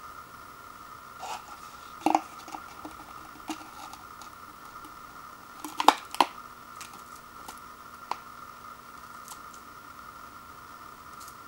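Ceramic bowl and paper soup cup handled as dry soup powder is tipped from one to the other: a few light knocks and clicks, the loudest around two seconds in and again around six seconds in, over a steady faint hum.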